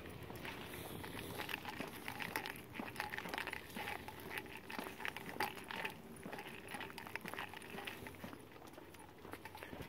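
Footsteps on a concrete sidewalk while walking a dog: an uneven run of soft scuffs and light clicks, over a faint steady hum.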